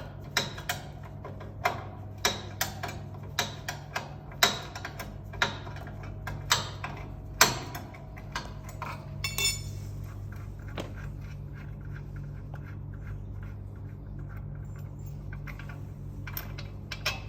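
Sharp metal clicks and clinks, about one a second, from hand tools working the fittings of a Taisei noodle machine's conveyor while the belt is being removed. A ringing metal clink comes about nine seconds in, then only faint light clicks over a steady low hum.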